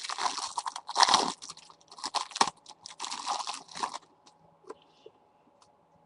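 Trading cards being handled and shuffled, a dense papery rustling and crinkling for about four seconds that stops abruptly, followed by a single faint click.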